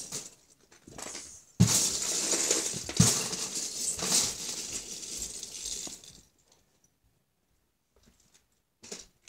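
Loose Lego bricks clattering and clinking as a hand rummages through a plastic storage bin: a short rattle early, then about four seconds of dense clatter with sharp clicks, stopping about six seconds in, and a brief rattle again near the end.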